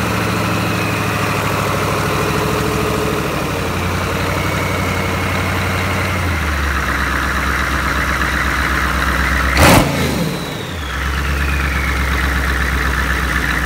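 Freshly rebuilt 6.2 V8 diesel with twin turbochargers idling, its idle speed stepping down twice as it settles. About ten seconds in there is a short loud burst, followed by a high whistle that falls in pitch over about two seconds.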